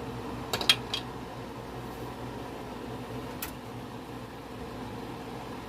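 Steady mechanical hum and hiss, like a kitchen appliance fan, with two sharp clicks about half a second in and another single click a few seconds later.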